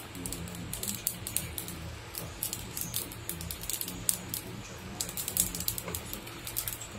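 Havan fire crackling with rapid, irregular sharp pops as offerings are fed into it and sparks fly.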